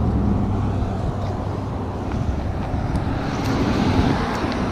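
Steady engine drone with a low hum, growing a little brighter after about three seconds.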